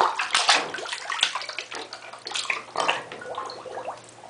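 Bathwater splashing and sloshing in irregular bursts as a small child moves about in the tub, loudest in the first second.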